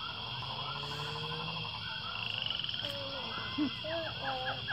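Small animals calling outdoors: many short, repeated chirps and croaks with a fast trill, over a faint low hum.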